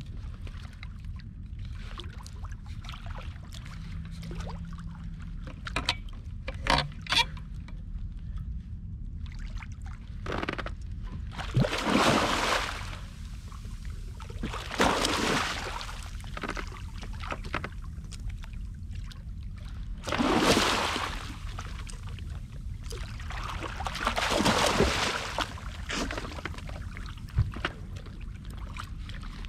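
Water rushing and sloshing against a small inflatable boat in four surges a few seconds apart, over a steady low rumble, with a few light knocks early on.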